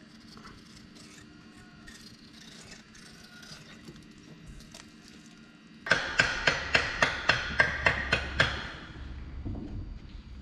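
Faint light clicking and scraping as hands work over a bare diesel cylinder head. Then a hammer strikes rapidly, about ten quick, sharp blows in two and a half seconds, the loudest sound.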